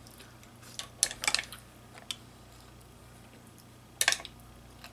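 Close-miked eating sounds of mussels and snow crab legs: a few short, sharp clicks and smacks in a cluster about a second in and another about four seconds in.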